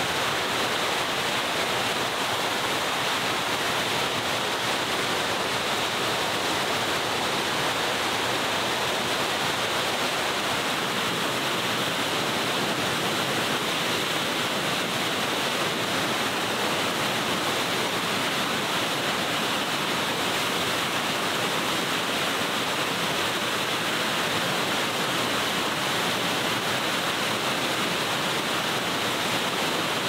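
Rushing water of a mountain stream or waterfall, a steady even noise that doesn't change.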